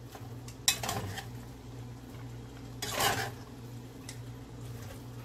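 Metal spoon stirring chopped pak choi in a metal pot: a sharp clink against the pot about a second in, then a longer scrape a little past the middle. A steady low hum runs underneath.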